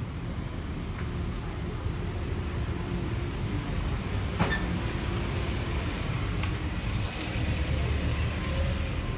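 Low, steady rumble of urban traffic noise, with one sharp click about four and a half seconds in.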